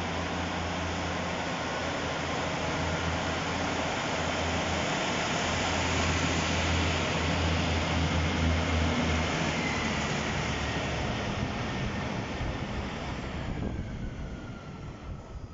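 Class 156 Super Sprinter diesel multiple unit pulling out, its underfloor diesel engines giving a low steady drone under the rumble of the wheels on the rails. The noise builds to its loudest about halfway through, then fades near the end as the train draws away, with a faint falling whine.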